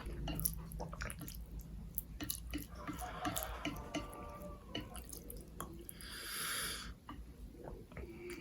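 Close-up mouth sounds of eating spicy Korean instant noodles: wet smacking and clicking as they are chewed, with a breathy hiss lasting just under a second about six seconds in.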